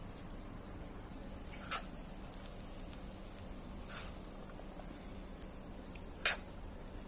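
Metal spoon clinking against a metal bowl three times as cooked beans are spooned out, the last clink the loudest, over a steady low background hiss.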